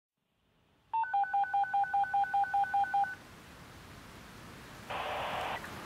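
Telephone keypad (DTMF) dialing tones: a rapid run of about eleven two-tone beeps, about five a second, as when a number is dialed. About a second after they stop there is a brief burst of hiss.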